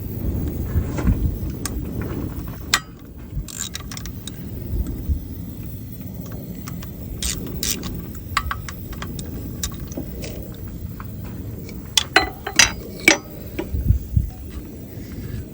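Hand tools clinking and clicking against metal fittings while a hose is worked loose, with a quick run of sharp clinks about twelve seconds in, over a steady low rumble.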